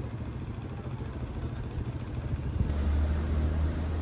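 Steady low rumble of road traffic on a city avenue. About two-thirds of the way through it turns abruptly louder and deeper as a city bus's engine runs close by.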